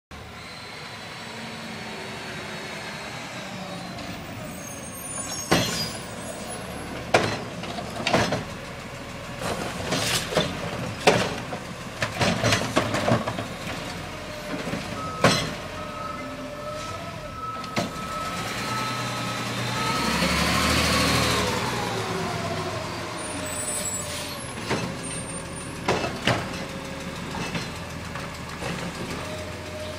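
Front-loading garbage truck with a carry-can cart arm collecting curbside bins: its diesel engine runs throughout while the arm grabs and tips the carts with a series of sharp clanks and knocks. About halfway through, a steady whine starts, then the engine swells and falls away as the arm lifts and sets down a cart, with a hiss of air.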